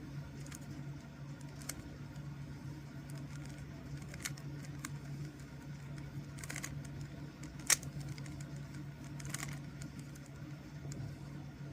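Rubik's Cube faces being turned by hand: scattered light plastic clicks, with one sharper click about two-thirds of the way through, over a steady low hum.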